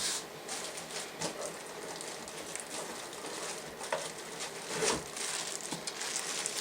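Packaging rustling and crinkling as accessories are lifted out of a box, a busy patter of small crackles with sharper ones about four and five seconds in.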